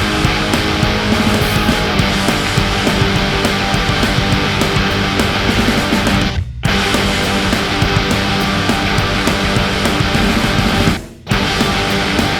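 Loud background music, steady and dense, that cuts out briefly twice, about six and a half seconds in and again near the end.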